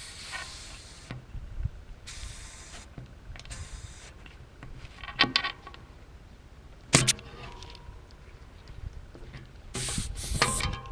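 Air hissing in short bursts through a bicycle pump head with a pressure gauge clamped on a tyre valve, with a sharp click about seven seconds in. Near the end comes a louder hiss as the head's lever is opened and it is worked off the valve.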